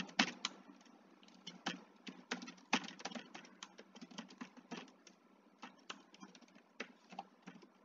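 Computer keyboard typing: quick, irregular key clicks, thinning out near the end.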